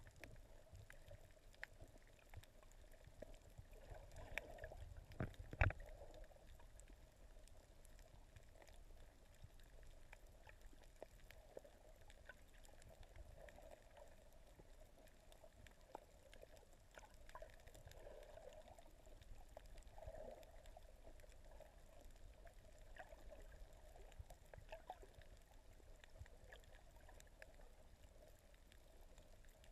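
Faint underwater ambience picked up through a camera's waterproof housing: a steady low hum and muffled water noise with scattered small clicks and crackles, and one sharper knock about five and a half seconds in.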